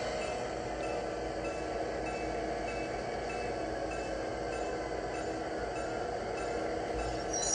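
Bell on an HO scale model diesel locomotive's sound system, ringing about twice a second over the steady hum of its engine sound. A brief sharp high sound comes right at the end.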